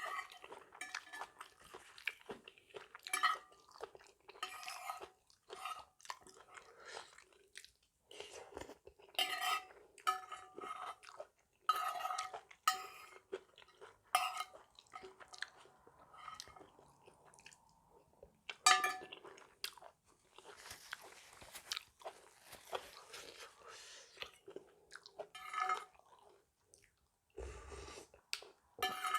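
A person eating spicy mixed-seafood salad close to the microphone. It is a run of irregular crunching and wet chewing in bursts with short pauses.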